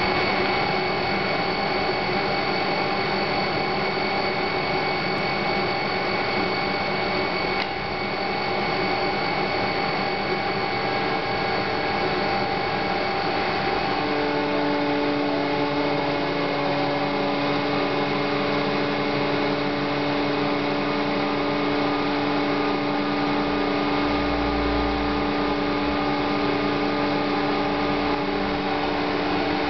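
Belt-driven JEC Combi marine refrigeration and multi-function unit running steadily on its test rig, driven by a DC brushless motor: a continuous mechanical whir with steady whining tones. About halfway through, a new, lower steady hum joins in and holds.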